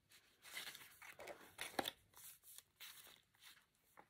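Faint rustling of cardstock pages and paper tags as a flip-down page in a handmade paper journal is lifted and folded back, in a few short brushes.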